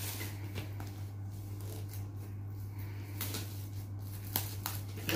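Cardboard laptop box being handled: soft scrapes and a few light taps as hands slide over and grip it, over a steady low hum.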